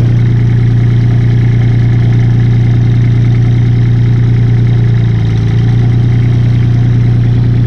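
A paver's Kubota three-cylinder diesel engine running steadily at a constant speed.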